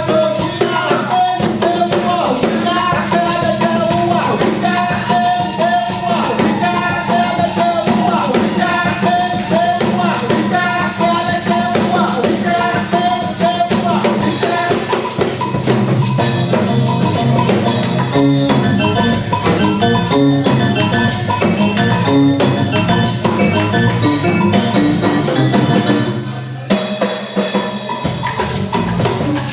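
Percussion-led music with shakers, drums and a pitched melodic line; near the end it drops away for a moment before the drums come back in.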